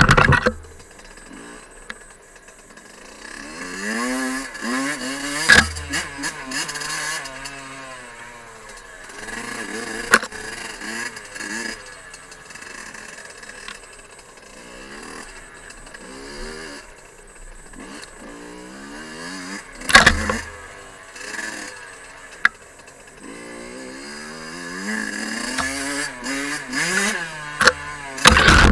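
Fantic 50 Scuderia's small two-stroke engine revving up and down in repeated rising and falling sweeps while riding a dirt trail. Several sharp knocks cut in, the loudest about twenty seconds in.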